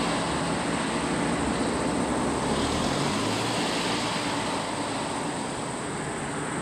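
Motor vehicle engines running on the road: a steady engine and traffic noise with no sharp knocks or horn blasts.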